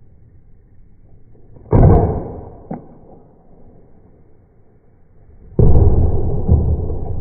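Two gunshots about four seconds apart, each ringing out with a long echo, and a short sharp click about a second after the first.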